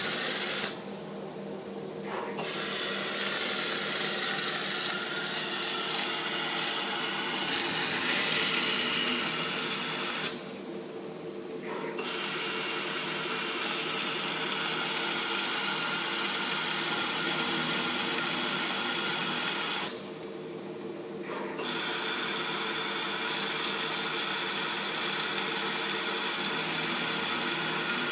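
Automatic roll slitter running, its rotating circular blade slicing through a vinyl tape roll with a steady hiss over a constant motor hum. The hiss breaks off briefly three times, about ten seconds apart, between cuts.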